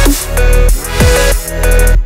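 Electronic dance music in a dubstep style: heavy bass with pitch sweeps that drop about once a second over sustained synth tones.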